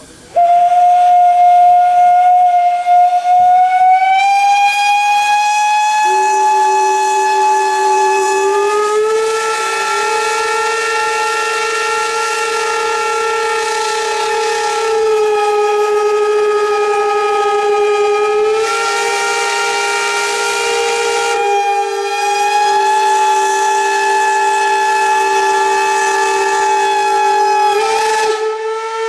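Two steam locomotive whistles blowing together in a long, loud sustained blast. One whistle starts first and rises slightly in pitch; a second, lower whistle joins about six seconds in, and the two hold with small shifts in pitch until they waver near the end.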